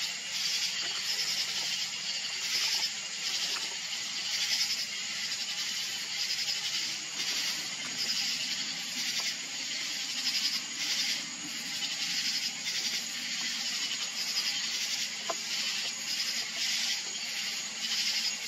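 Night insects chirping in a steady, rhythmic chorus of high-pitched pulses.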